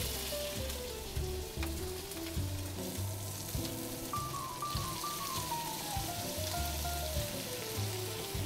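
Flounder fillets frying in melted butter in a stainless steel skillet, a steady sizzle. Background music plays with it, a simple melody of stepping notes over a bass line.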